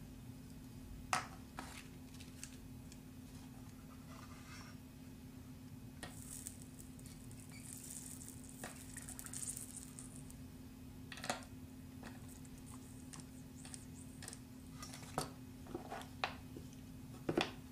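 Small clicks and taps of soldering work at a bench: wires, pins and tools knocking together, with a crackling sizzle of hot flux and solder for a few seconds in the middle. A steady low hum runs underneath.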